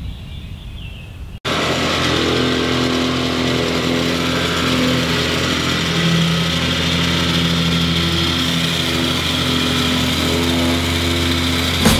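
Gas-engine vibratory plate compactor running steadily, packing down the gravel base of a paver walkway trench; it cuts in suddenly about a second and a half in.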